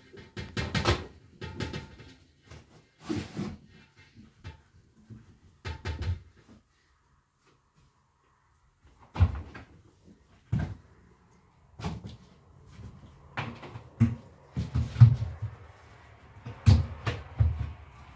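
Irregular knocks and clatters of a plastic bucket, its lid and a metal basin being handled and set down, with a quiet pause in the middle.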